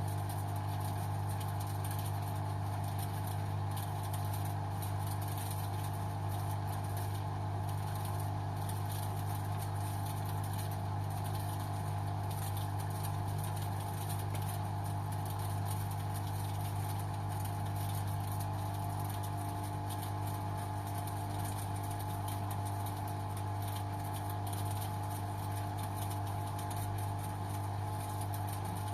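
LG washing machine running on its synthetics 30 programme, a steady, unchanging motor hum with a strong low drone.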